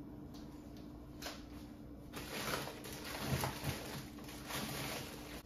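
Rummaging through frozen food: plastic-wrapped frozen packages rustling and knocking softly together. It is faint at first and gets busier about two seconds in, over a steady low hum.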